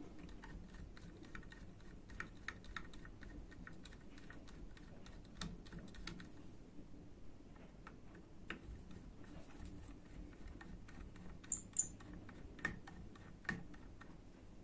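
Faint, irregular small clicks and light scraping of a screwdriver working the screws out of the wooden grip panels of a Feinwerkbau LP 65 air pistol, with a few sharper clicks near the end.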